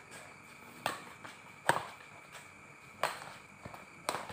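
Badminton rackets striking a shuttlecock during a rally, four sharp hits about a second apart.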